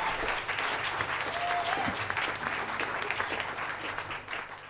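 Audience applauding, the clapping thinning and fading toward the end.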